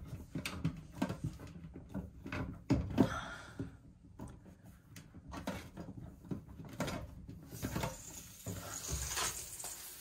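Washing-machine inlet hoses and their metal couplings being handled, with scattered knocks and clicks. Near the end comes a steady hiss of water escaping at a hose connection that isn't tight.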